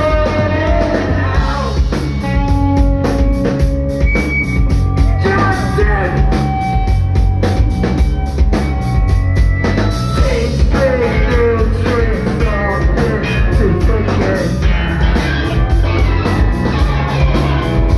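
Punk rock band playing live: driving drum kit, electric guitar and bass, with a singer's vocals over them, loud and steady throughout.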